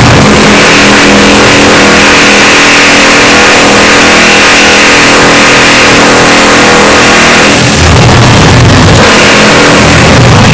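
Construction machinery noise, deliberately blown out: a harsh, clipped machine drone at full volume. A heavier, pulsing low rumble comes in about eight seconds in.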